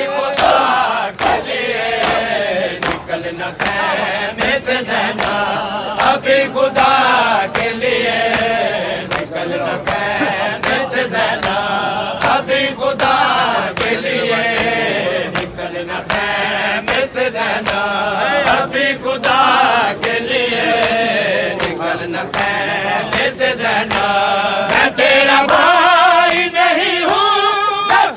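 A crowd of men chanting a Shia noha lament in unison, following lead reciters. Palms strike bare chests in matam in a steady beat, about two strikes a second.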